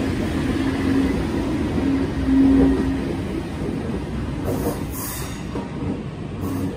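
ICE 3 high-speed electric train rolling slowly along the platform and pulling away, its running noise fading as the last car passes. A steady humming tone comes and goes in the first three seconds and is loudest about two and a half seconds in.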